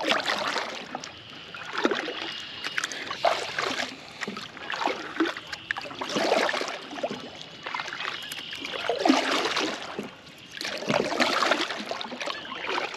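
Kayak paddle strokes: the double-bladed paddle dips into the water on alternate sides, splashing and dripping, with a stroke about every second and a half.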